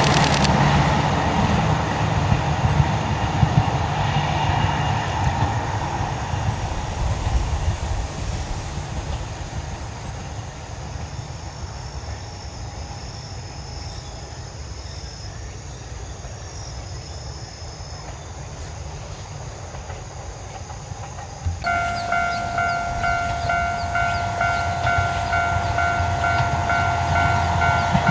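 Wakayama Electric Railway 2270-series electric train running on the line; its sound slowly fades away over most of the clip. About three-quarters through there is an abrupt change to louder running with a steady high hum and a regular clatter.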